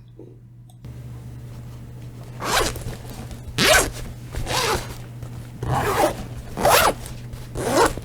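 Zipper pulled closed and open again and again, six quick strokes about a second apart, picked up by a FIFINE K669B USB microphone over a steady low hum.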